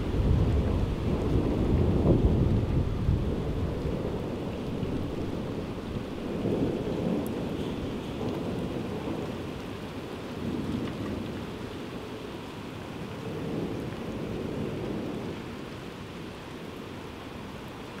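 Thunderstorm: rolling thunder over steady rain. The loudest rumble comes in the first few seconds, then weaker rolls swell and fade, dying down near the end.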